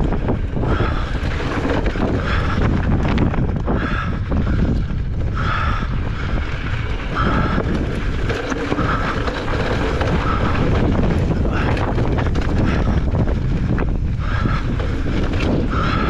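Strong gusting wind buffeting the microphone during a mountain bike race descent, with scattered clattering knocks from the bike over rough trail.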